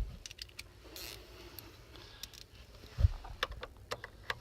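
Scattered light clicks and knocks of an ignition switch being fitted back onto a steering column, with a dull thump about three seconds in.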